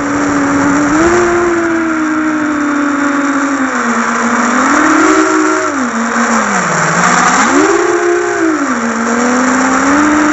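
Brushless motors and propellers of an XL7 7-inch FPV drone, heard through its onboard camera: a loud whine whose pitch climbs and falls with the throttle, swelling up a few times, over a steady hiss.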